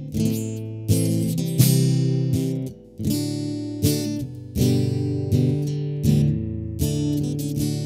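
Acoustic guitar strumming chords at random, one strum about every three-quarters of a second, each chord left to ring.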